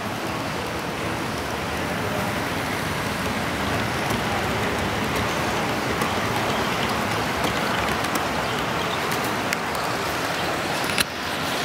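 HO-scale model train running past, a steady hiss of its wheels and motor on the track with scattered faint clicks and one sharper click near the end.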